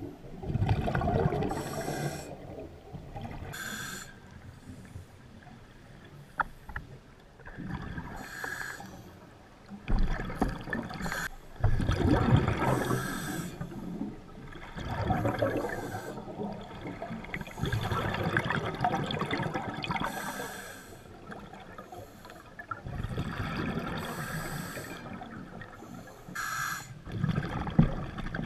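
Scuba diver breathing through a regulator, heard underwater: a hissing inhale through the demand valve alternating with a low rumbling gush of exhaled bubbles, about six or seven breaths over the stretch.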